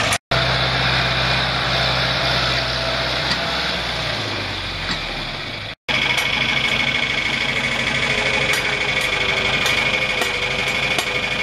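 1966 John Deere 3020's four-cylinder gas engine running, slowing down about four seconds in. After a short break it runs on steadily, with a steady high whine over it.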